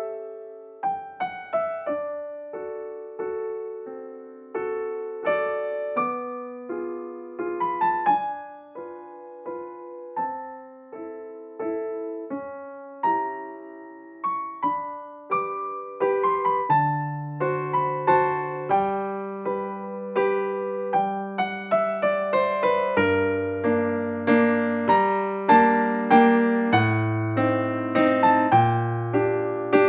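Background piano music: a gentle melody of single struck notes that fade after each strike. About halfway through, a deeper bass line joins and the music grows fuller.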